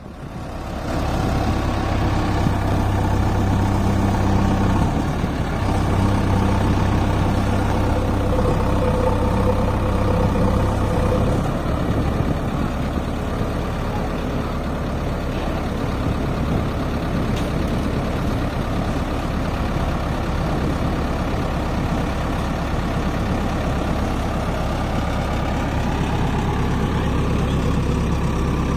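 Heavy diesel machinery engine running steadily with a low engine note, which turns rougher about eleven seconds in.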